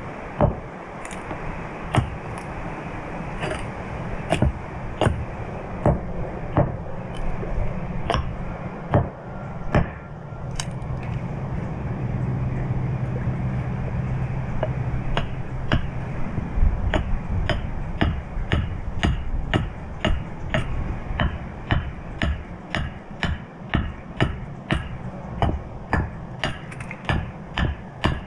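Repeated sharp knocks of a carving tool striking a wooden spoon blank, about one a second at first and quickening to nearly two a second in the second half.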